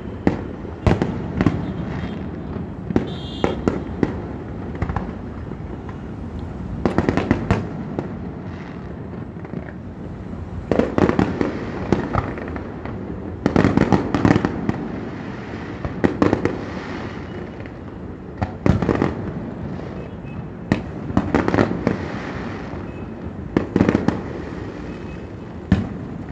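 Fireworks display: aerial shells bursting one after another, a steady run of bangs with denser volleys about eleven, fourteen and twenty-four seconds in.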